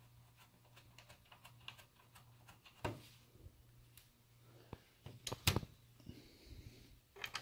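Faint scattered clicks and small knocks of bolts and plastic fasteners being handled and threaded into the plastic shutter frame by hand. A few louder taps come about three seconds in and again around five and a half seconds in, over a steady low hum.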